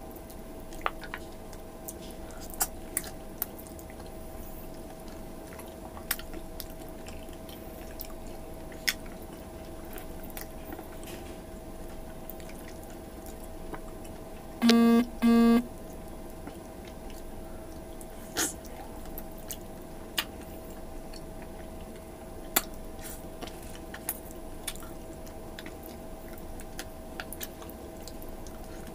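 Close-up mouth sounds of eating stewed beef on the bone (balbacua) by hand: chewing, with scattered wet smacks and clicks over a faint steady hum. About halfway through, two short, loud beeps sound in quick succession.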